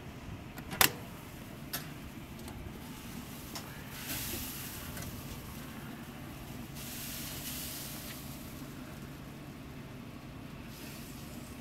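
Metal door latch of a commercial barbecue smoker snapping open with a sharp clack about a second in and a smaller clack just after, over a steady low hum. A hiss rises while the smoker doors stand open and fades near the end.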